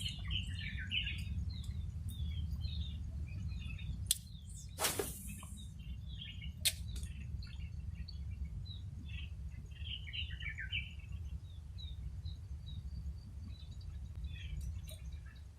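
Birds chirping, many short calls, over a low steady rumble. A few sharp clicks and a brief hiss come about four to seven seconds in.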